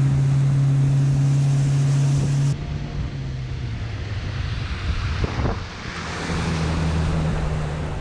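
Engine running with a steady low hum. About two and a half seconds in, the sound cuts to another engine running under a wide hiss, with a steady hum coming up near the end.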